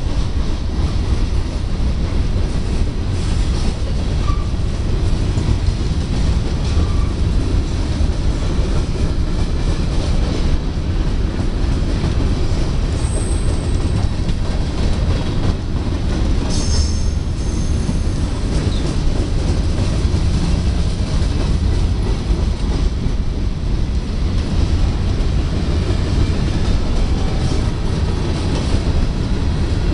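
Loaded covered hopper cars of a freight train rolling past slowly, at around 15 mph: a steady rumble of steel wheels on the rails. Brief high wheel squeals come about 13 seconds in and again a few seconds later.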